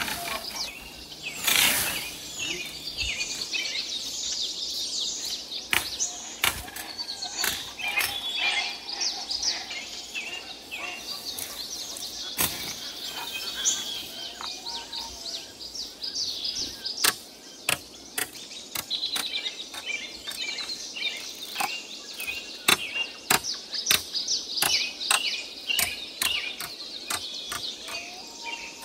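Small birds chirping over a steady outdoor background, with irregular sharp clicks and taps throughout that come more often in the second half.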